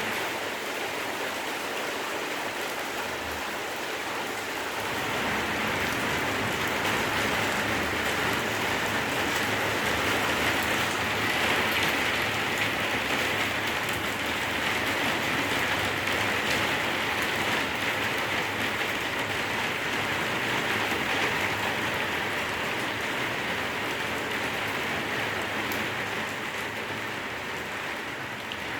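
Heavy rain falling steadily in a thunderstorm, a constant hiss that grows louder about five seconds in.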